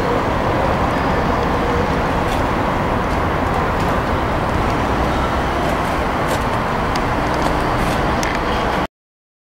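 Cummins LTA-10G1 turbocharged six-cylinder diesel engine of a 200 kW generator set running steadily at its 1800 rpm governed speed. The sound cuts off abruptly near the end.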